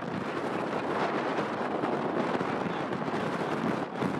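Jet aircraft engines roaring with a rough, crackling edge.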